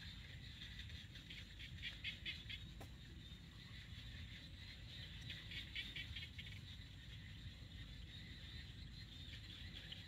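Faint high chirping from small animals in fast-pulsed trains about a second long, twice, over a low steady rumble.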